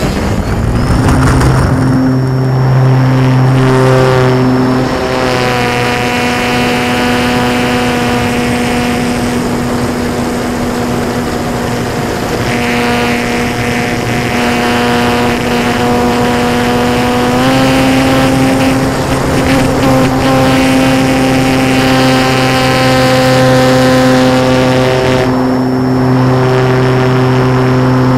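Techone Air Titan RC plane's electric motor and propeller, heard through the camera on the airframe. The motor throttles up for takeoff at the start and then runs steadily in flight, stepping up slightly in pitch about two-thirds of the way through and winding down as the throttle is cut near the end.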